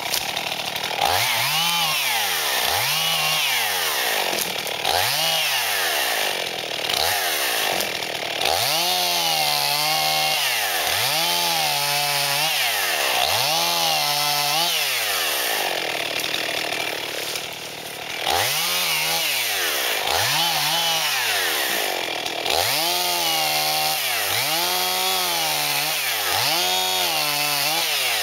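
Husqvarna two-stroke chainsaw cutting wood, the engine revving up and dropping back again and again, about once every second and a half, with a few brief pauses between runs of cuts.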